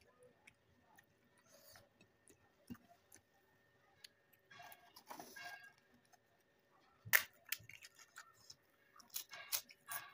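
Close-up eating sounds: faint scattered clicks and a soft rustle around the middle, then sharp, crisp crunching clicks about seven seconds in and again near the end as crisp food is bitten and chewed.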